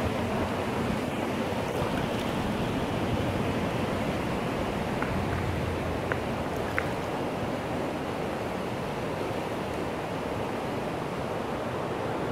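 Steady rushing of a swollen, fast-flowing river in flood, an even wash of water noise, with wind rumbling on the microphone at times.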